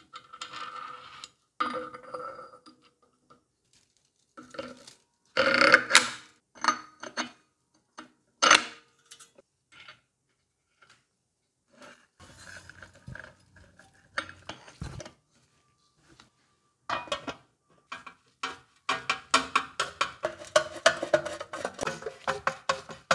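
Metal parts and hand tools clinking and knocking, each tap ringing briefly, with short silences between. A quick run of clicks fills the last few seconds.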